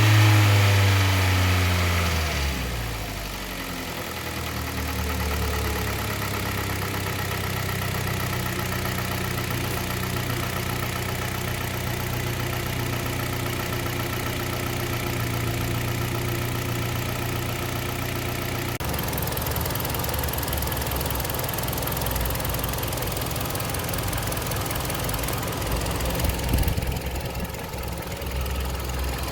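Kia Sportage 3's engine, warmed up after an oil change, dropping from a rev back to idle in the first couple of seconds and then idling steadily. According to the owner, the dull metallic knock it had before the service is gone.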